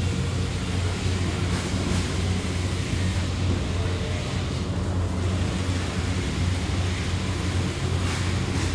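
Factory machinery running with a steady low hum under a constant wash of industrial noise, with a few faint brief hisses on top.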